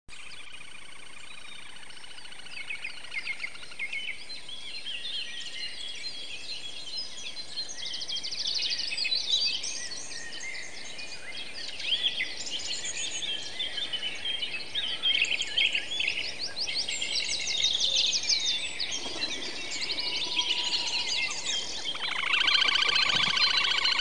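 Several songbirds singing at once: overlapping chirps and rapid trills over a steady hiss, with a louder fast trill starting about two seconds before the end.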